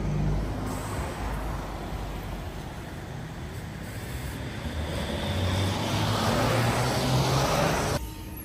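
A motor vehicle driving past on a city street, its engine hum and tyre noise growing louder toward the end, then cutting off suddenly.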